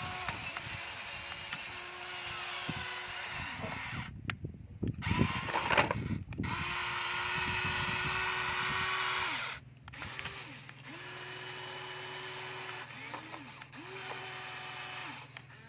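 Electric motors of a Huina toy remote-control excavator whining in repeated short runs, each starting and stopping with a brief glide in pitch as the arm and bucket move. A burst of clattering knocks comes about four to six seconds in.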